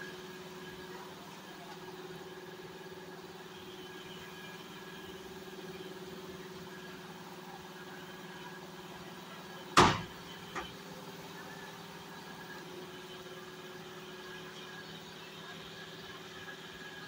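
Steady machine hum at an even pitch, broken about ten seconds in by one loud, sharp bang and a smaller knock just after it.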